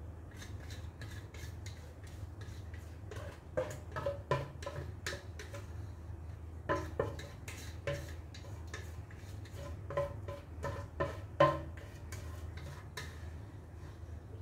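Spatula scraping and tapping against a stainless steel mixing bowl as thick brownie batter is poured out. It makes a run of irregular light clicks and ringing metal taps, busiest from about three seconds in, over a steady low hum.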